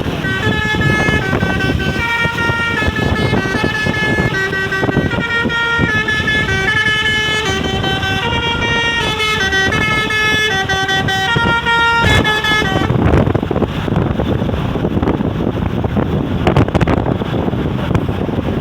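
Basuri V3 'telolet' musical bus horn playing a tune of quickly changing notes. It cuts off suddenly about 13 seconds in, leaving a steady noisy rumble.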